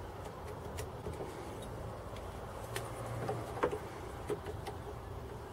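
Light clicks and taps of hand tools being handled against a small oak box on a wooden workbench: a pencil marking and a combination square being set on the wood, a few separate clicks over a faint steady low hum.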